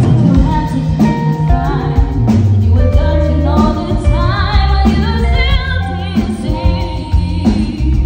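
Live band playing a pop-soul cover: a woman singing over electric guitar, bass guitar and drum kit.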